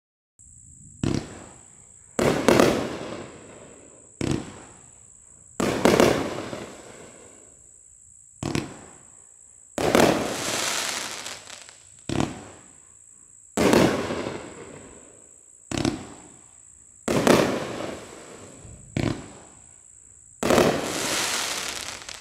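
Consumer firework cake (Raccoon Fireworks' Tiger Curse) firing six single shots: each is a sharp launch crack followed about a second and a half later by a louder aerial break with a fading tail.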